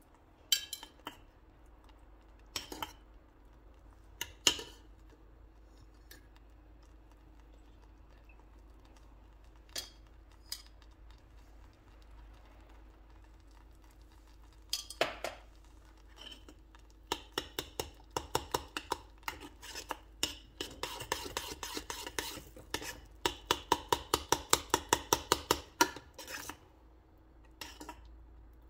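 Metal spoon knocking and clinking against a stainless steel saucepan while stirring a thick white sauce. A few scattered knocks come first, then a fast run of clinks, about three a second, for several seconds in the second half.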